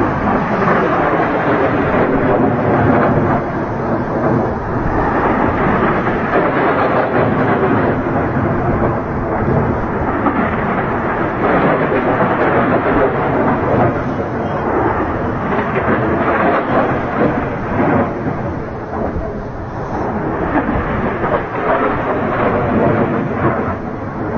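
HIMARS rocket launches: a loud, continuous rumbling roar that swells and eases in places.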